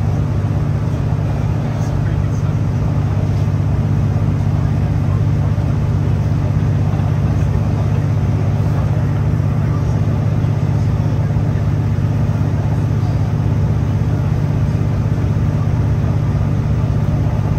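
Steady interior noise of a Great Western Railway Class 165 diesel multiple unit running at speed: a low drone from its underfloor diesel engine over the rumble of wheels on rail.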